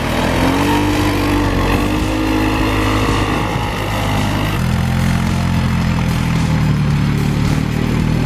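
A vehicle engine running and revving, its pitch rising and falling. About four and a half seconds in, it switches abruptly to a steadier, lower engine note.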